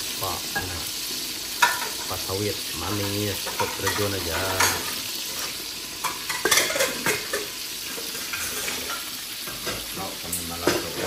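Food sizzling in hot oil in a pan while it is stirred, with a utensil clicking and scraping against the pan now and then.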